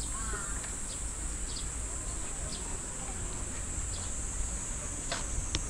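Steady high-pitched insect drone, with a short warbling bird call near the start and a few brief bird chirps, more of them near the end.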